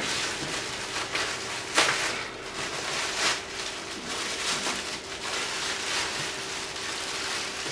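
Clear plastic wrapping crinkling and rustling as it is handled and pulled open around a new leather bag, with a few sharper crackles, over a faint steady hum.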